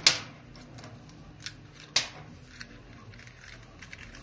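Sharp clicks and ticks of the small plastic and metal parts of a butane soldering iron being picked up and fitted together, two louder clicks about two seconds apart. Under them, the steady low hum of 3D printers running in the workshop.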